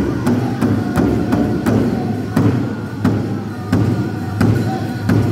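Powwow drum group: a large drum struck in a steady beat, about three beats a second, with singers' voices over it.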